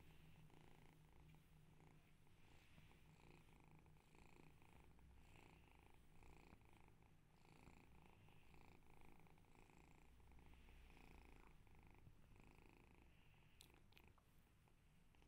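Kitten purring faintly and steadily while being stroked, the purr swelling and fading with each breath in and out.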